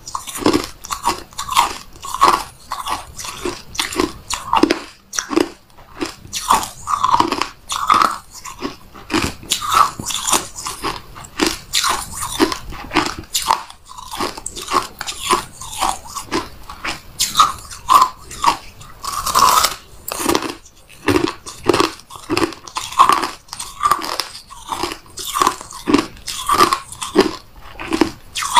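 Close-up biting and chewing of a porous chunk of freezer frost ice: a steady run of crisp, loud crunches, one after another with each bite and chew.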